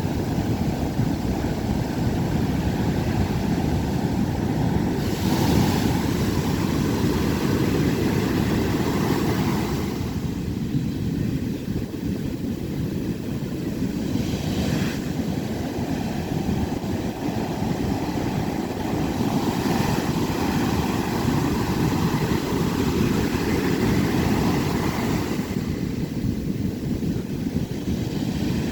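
Ocean surf breaking on a beach: a continuous deep rush of water with swells of brighter hiss as waves crash, several times over, and wind rumbling on the microphone.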